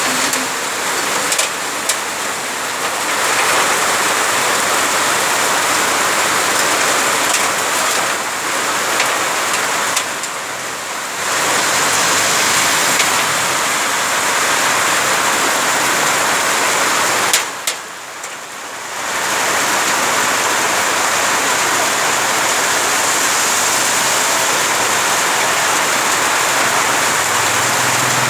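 Heavy rain falling steadily in a dense hiss, briefly easing about ten seconds in and again just before the halfway point. A few sharp ticks stand out near the start and just before the second lull.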